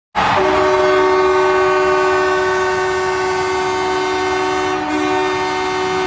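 Ice hockey arena goal horn blaring one long held chord of several steady tones, the signal that the home team has scored.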